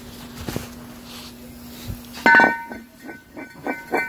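Metal-on-metal clatter from brake and hub work: a loud clang a little over two seconds in, ringing afterwards, then a quick run of lighter clinks.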